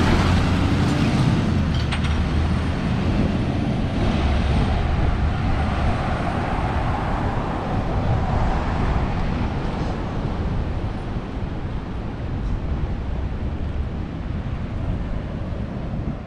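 Rear-loader garbage truck's diesel engine pulling away, a low rumble that slowly fades with road noise.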